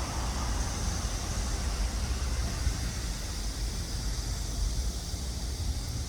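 Steady outdoor background noise: a low, unsteady rumble with a continuous high hiss over it, typical of distant road traffic and wind.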